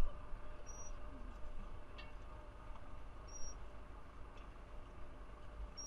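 Ursus C-360 tractor's diesel engine running low and muffled, with three faint short high squeaks about two and a half seconds apart.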